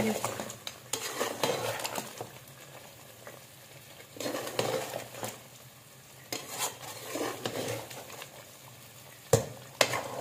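A metal spoon stirring chicken karahi in a metal karahi pan, mixing in the yogurt just added, the sauce sizzling as it is turned over, in several rounds of stirring with short pauses. Near the end come two sharp knocks of metal on metal.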